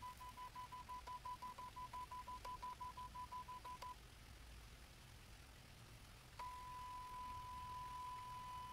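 Faint high-pitched electronic whine from the pSolBot 1 solar tracker as it drives the panel. It pulses about six times a second for the first four seconds, stops, then holds as one steady tone from about six and a half seconds in while the panel swings back toward its flat home position.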